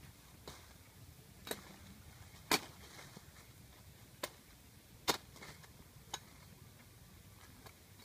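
Machete chopping at a freshly cut green branch, trimming off its leaves and side twigs: about seven sharp chops at irregular intervals, the loudest about two and a half and five seconds in.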